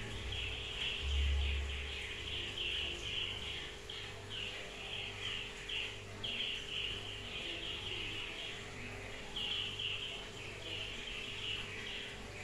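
High-pitched animal chirping in repeated bouts, over a steady low electrical hum, with a brief low rumble about a second in.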